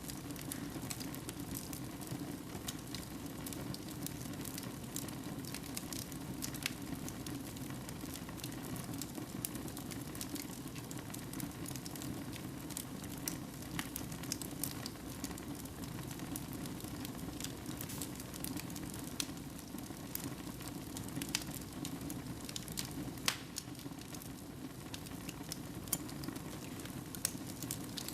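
Wood fire crackling in a fireplace: a steady hissing rush with irregular sharp pops and snaps throughout.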